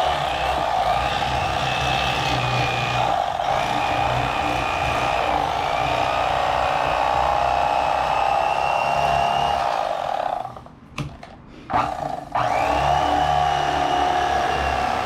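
Electric fillet knife running steadily with a motor hum and a high whine as its blades saw through a crappie. The motor stops for about two seconds near the end, with a couple of clicks, then starts again.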